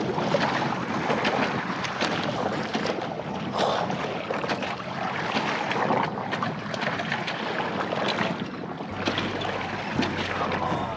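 Wind buffeting an action camera's microphone on an open boat at sea, mixed with waves washing against the hull, in uneven gusts.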